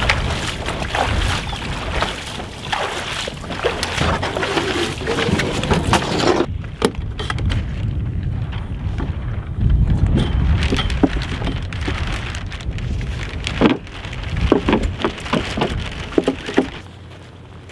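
Splashing steps wading through shallow water while a wooden canoe is hauled ashore, with wind on the microphone. About six seconds in this gives way to wind buffeting the microphone and scattered knocks and clatters as the canoe's sail rig is handled.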